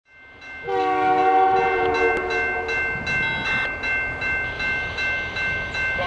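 Locomotive multi-chime air horn sounding one blast of about two seconds, starting just under a second in. Afterwards a few high steady tones carry on under a regular pulsing beat.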